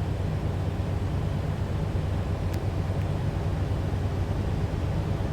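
A 1979 van's engine idling steadily at operating temperature, with its thermostat open.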